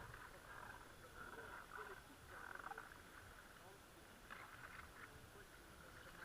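Faint frog calls, short and repeated, with quiet distant voices underneath.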